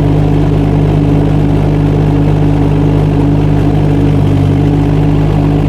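Kubota D902 three-cylinder diesel engine of a 2-ton mini excavator running steadily while the side-swing boom is worked hydraulically.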